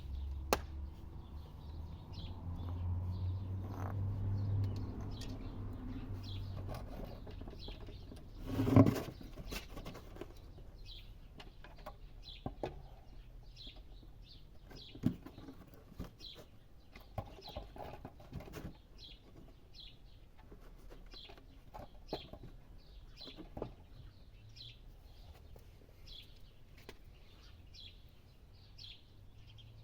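A small bird chirping in short high notes, roughly once a second, through the second half. About nine seconds in, one loud brief burst of a bird's wings flapping, with a few scattered knocks around it.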